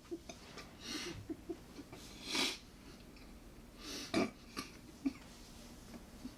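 A person eating: chewing, with mouth noises and a few short, louder puffs of breath about one, two and a half and four seconds in.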